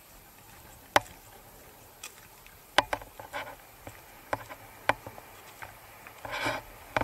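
Scattered sharp clicks and knocks over a low background hiss, with a louder rustling patch near the end: handling noise from a protected 360 camera being carried along.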